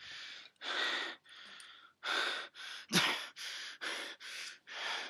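A person panting heavily, with quick gasping breaths about twice a second.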